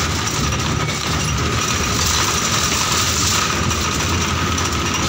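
Running noise heard from inside a moving road vehicle: a steady low engine and road rumble under an even rushing sound, with a faint steady whine.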